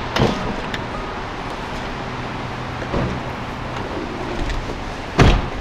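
A car door being opened by hand over a steady low hum, with a sharp knock at the start and a loud thump near the end.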